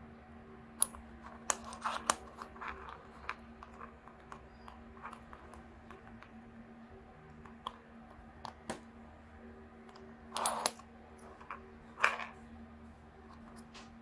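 Small plastic clicks and scrapes of a translucent white linear mechanical keyboard switch housing being pried open by hand and in a switch opener, its stiff clips resisting. The clicks come irregularly, with two louder clusters of clatter about ten and twelve seconds in.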